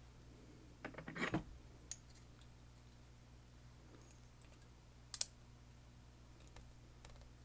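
Small clicks and taps of metal lock parts and tools being handled as an M&C Condor lock is taken apart: a cluster about a second in, a few faint ticks, and one sharp click about five seconds in.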